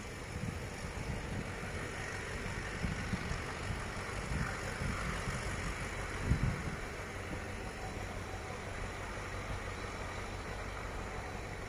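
Diesel locomotive engine running steadily as a container train approaches out of a tunnel, with a few low thumps, the loudest about six seconds in.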